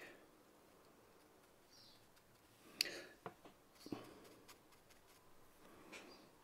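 Near silence with a few faint clicks and light scratches from a fine brush dabbing glue onto a painted foam piece. The clearest click comes a little under three seconds in, with smaller ones just after it and near the end.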